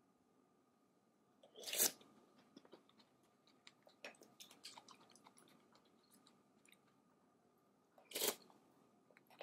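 Mouth sounds of someone eating corn oatmeal soup. There are two short, loud sips off a spoon, one about two seconds in and one near the end, with soft chewing clicks from the corn kernels in between.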